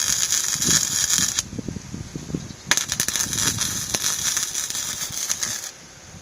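Electric arc welding on steel stair framing: a steady crackling arc that stops about a second and a half in, then a second weld run of about three seconds starting near the middle.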